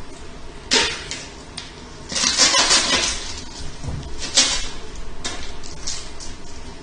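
Kitchenware being handled: dishes and pans clattering and clinking, with a sharp knock about a second in, a busier run of clatter around two to three seconds, and another sharp clink near the middle.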